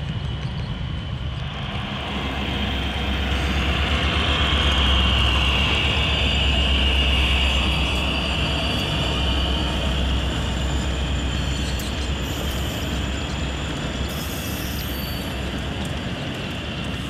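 HO-scale model train, the Northern Pacific North Coast Limited behind EMD F-7 units, running on the layout track: a steady rumble with a high whine that swells as it comes by, loudest about five to eight seconds in, then eases off.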